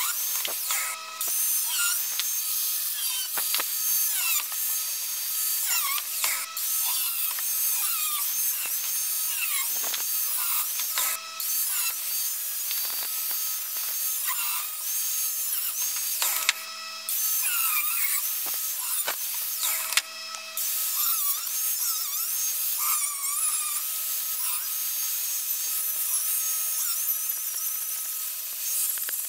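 Angle grinder with a thin cut-off wheel running with a steady high whine as it cuts through the sprue of a cast metal coin clamped in a vise. Its pitch dips and wavers as the wheel bites under load. The sound breaks off briefly a few times.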